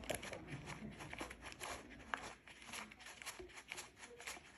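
Faint, irregular light clicks and rubbing from a 19 mm socket and the Hope Evo crankset's spindle end bolt being unscrewed by hand, the bolt already broken loose and turning easily.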